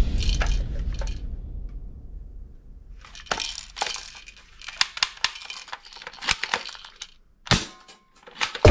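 Hard plastic toy rifle being picked up and handled: a string of sharp clicks, knocks and rattles of plastic parts, with a louder thump near the end.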